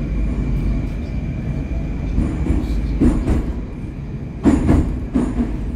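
Metro train carriage running as it pulls out along the platform: a steady low rumble with a thin high whine in the first half, then a few loud wheel knocks and clatter about four and a half seconds in.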